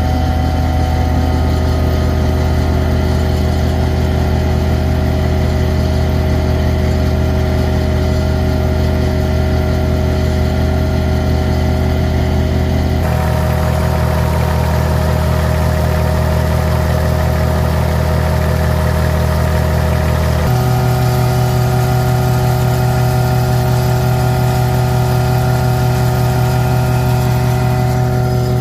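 Kubota D1105 three-cylinder diesel engine of a vacuum excavator running steadily. Its tone changes abruptly twice, about 13 and 20 seconds in.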